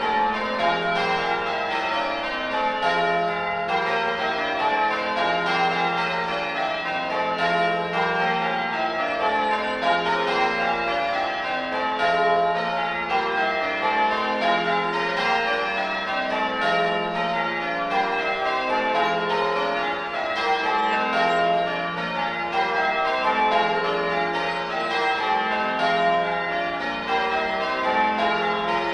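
Church bells being change rung: the 1954 Gillett and Johnston ring of eight at Cranleigh, struck one after another in a steady, even rhythm, with the tones overlapping and sustaining.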